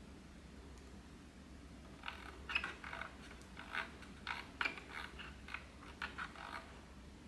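Detent clicks of the rotary brightness dial on a Neewer RGB660 LED light panel being turned, raising the light's output. A quick, uneven run of small clicks starts about two seconds in and stops shortly before the end.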